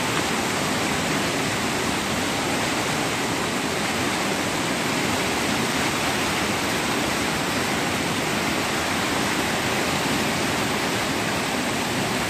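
Flooded river rushing steadily over rapids: the Rappahannock in flood, its muddy water churning over the falls.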